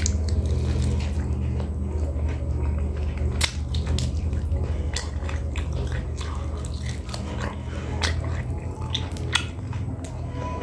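Close-up eating sounds of a man biting and chewing meat off a chicken bone: irregular sharp wet clicks and smacks from the mouth and fingers. A steady low hum runs underneath.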